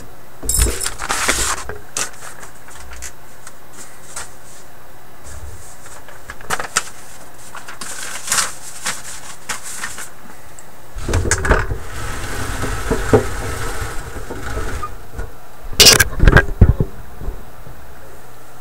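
Handling noises as the camera is moved in closer over the workbench: scattered clicks, knocks and scrapes, with a cluster of louder knocks near the end.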